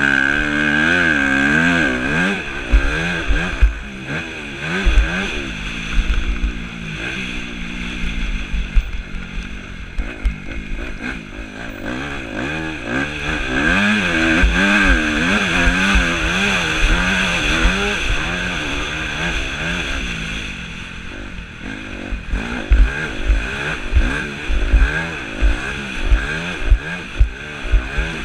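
Yamaha YZ250F four-stroke single-cylinder motocross engine ridden hard, close up from the rider's camera: the engine note climbs and drops over and over as the rider opens and closes the throttle through the turns and straights. It backs off briefly about three quarters of the way in, and sharp low thumps come through near the end.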